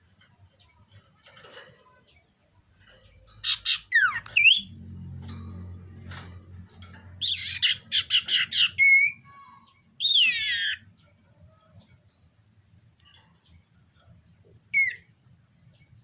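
Cipoh (common iora), a bird in breeding condition, calling in four short bursts of rapid chattering and quick sweeping whistled notes, the longest burst about halfway through. A low steady hum runs underneath from about four seconds in.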